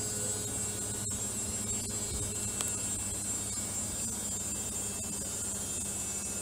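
Steady electrical hum and hiss of background recording noise, with a few faint clicks.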